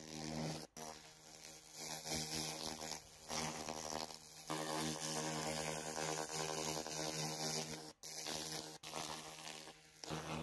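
Handheld 2000-watt laser cleaner ablating rust from cast-metal parts: a steady electric buzz with a hiss on top. It breaks off briefly several times.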